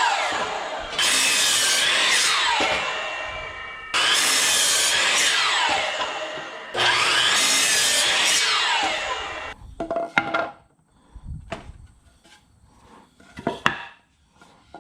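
Miter saw cutting boards to length: three cuts a few seconds apart, each a burst of blade noise that winds down with a falling whine as the blade spins down. Near the end, wooden knocks and clatter as the cut pieces are handled.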